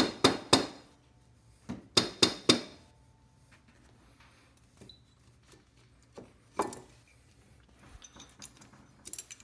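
A wrench clinking against the oil line fittings on a Harley-Davidson Shovelhead's rocker box as the line is loosened: sharp metallic clinks in short clusters, a few right at the start and four more about two seconds in, then single clinks later on.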